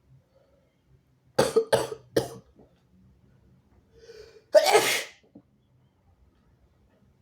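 A sick person's harsh coughing, three short coughs in quick succession, then a sharp breath in and one harsh sneeze.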